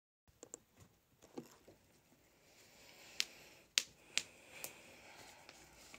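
Quiet room with a few faint, sharp clicks, four of them spread through the second half, over soft handling noise.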